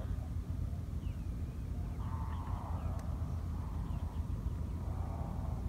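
Wind buffeting the microphone, a steady low rumble, with faint short chirping calls over it.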